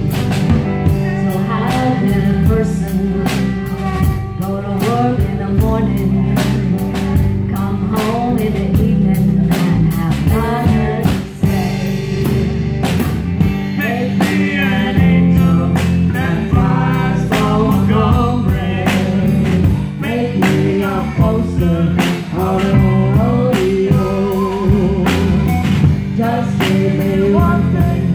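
Live rock band playing: electric guitars and a drum kit keeping a steady beat, with a woman singing lead.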